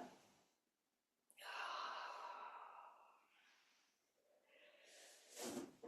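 A woman breathing out audibly in a long sigh-like exhale of about a second and a half, starting about a second and a half in, trailing into a fainter breath, with a short breath in near the end.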